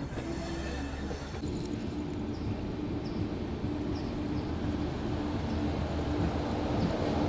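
Passenger train running, heard from an open coach doorway: steady wheel-on-rail rumble with a broken low hum and a few faint ticks. It grows louder near the end as an oncoming electric locomotive closes in on the next track.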